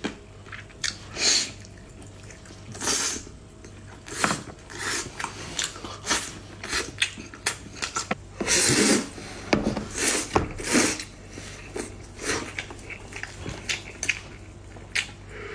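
Close-miked eating sounds: irregular wet chewing, biting and mouth clicks, with a few longer, louder noises about halfway through.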